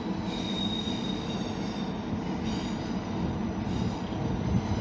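A train moving through the station, a steady rumble with a faint, thin wheel squeal in the first couple of seconds.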